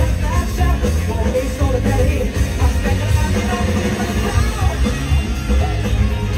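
Live rock band playing loudly with a singer, over a heavy bass and drums.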